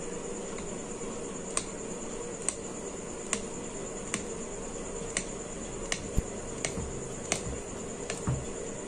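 A kitchen knife cutting a log of dough into small pieces on an aluminium plate, the blade tapping the metal with each cut: about ten sharp taps, roughly one a second. Crickets chirr steadily behind.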